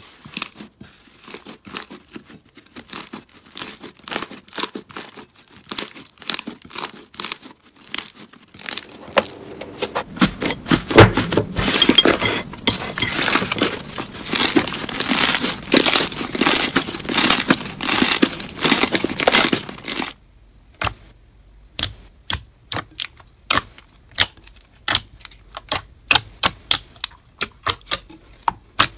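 Hands stretching, squeezing and pressing slime: a run of sticky crackles and small pops, thickest and loudest in the middle, then thinning to scattered clicks near the end.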